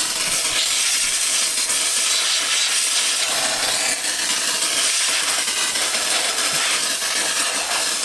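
Handheld steam cleaner blasting a loud, steady hiss of steam, which cuts off abruptly at the end.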